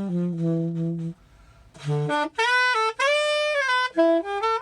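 1955 Selmer Mark VI saxophone played solo in a jazz phrase: a held low note, a short pause about a second in, then a long high note with a slight bend and a quick run of notes near the end.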